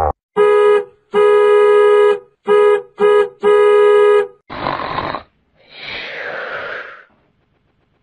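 Horn sound effect honking five times at one steady pitch in a short–long–short–short–long rhythm, followed by two short rushes of noise.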